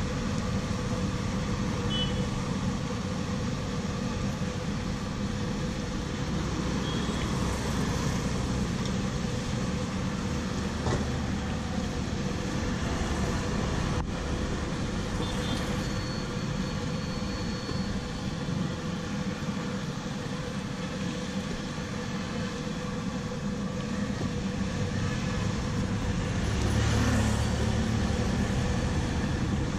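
Urad dal vadas deep-frying in a large kadai of hot oil, a steady sizzle and bubbling, over a steady low rumble that grows louder near the end.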